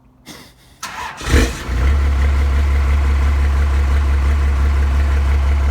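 First-generation Dodge Ram truck engine cranking briefly and catching about a second and a half in, then idling steadily. It starts quickly, the way it should after the rewiring.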